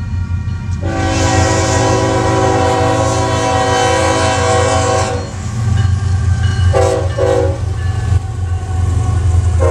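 Union Pacific diesel freight locomotives passing close by, their engines giving a deep steady rumble. The air horn sounds one long blast of about four seconds starting a second in, then a short blast later on, and a third begins at the very end: the grade-crossing horn signal.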